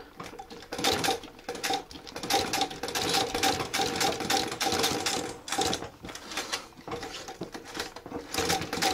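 Singer 31K15 treadle-driven industrial sewing machine stitching upholstery leather at a slow, foot-controlled speed: a steady run of rapid mechanical clicks over a faint hum, easing off for a couple of seconds past the middle and picking up again near the end.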